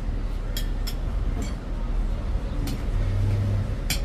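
Forks and spoons clink against plates and bowls several times, in short sharp taps. Under them runs a steady low rumble of street traffic.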